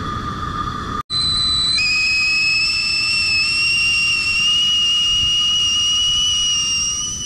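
Stovetop tea kettle whistling at the boil. A single high whistle starts about a second in, then a louder two-note whistle takes over and holds steady, creeping slightly up in pitch.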